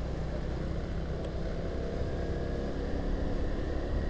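Motor scooter's engine running steadily while riding along a street, with steady road and wind noise heard from a helmet-mounted camera.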